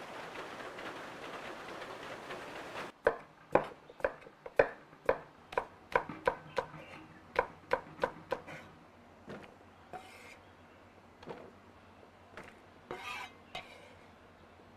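A steady hiss for about three seconds, then it breaks off and a run of sharp kitchen knocks follows, about two a second, like a utensil or knife striking a pot or board. The knocks thin out to a few scattered ones near the end.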